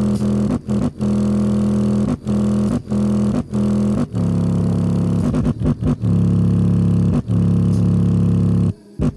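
Sharp 8-inch subwoofer driven hard in free air, playing a loud low bass note with strong overtones. The note cuts out briefly several times in the first four seconds, then holds steady before stopping near the end.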